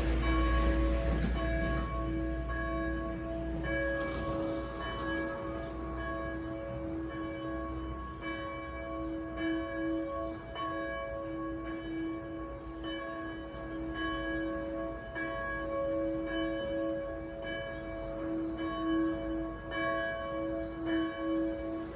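Catholic church bells ringing the noon hour: repeated strikes, each bell's tone ringing on and overlapping the next.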